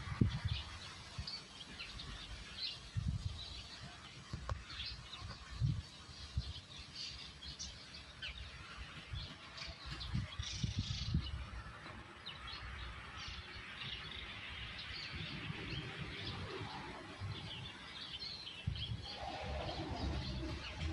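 Outdoor birdsong: many short chirps from small birds, scattered through the whole stretch, with occasional low bumps on the microphone.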